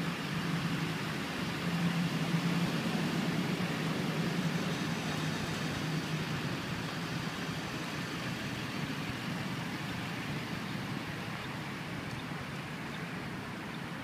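Lifted pickup truck's engine running as it moves off and drives away, the sound slowly fading.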